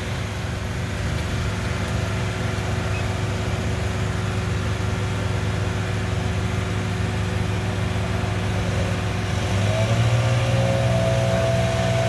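A work machine's engine running steadily with a low drone, growing a little louder about ten seconds in.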